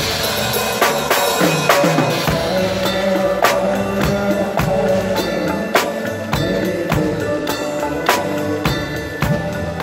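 Drum kit played live with a band, heard close up: a steady beat of drum and cymbal strokes, roughly one every half second or a little more, over the band's sustained instrument tones.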